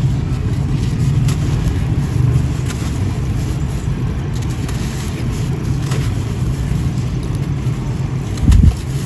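Steady low rumble like wind buffeting the microphone, with a few faint, crisp crackles of dry sand-cement crumbling and a single low thump near the end.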